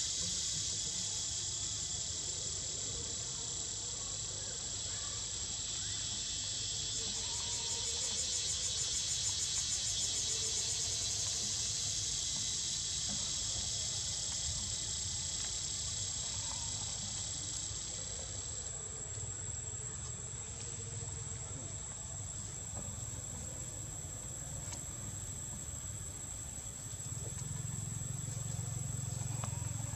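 Steady high-pitched chorus of buzzing insects over a low rumble. About two-thirds of the way through, part of the chorus fades, leaving a thinner high tone. The rumble grows louder near the end.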